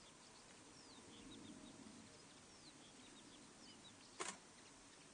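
Near silence, with faint short bird chirps scattered through the background and a single brief click about four seconds in.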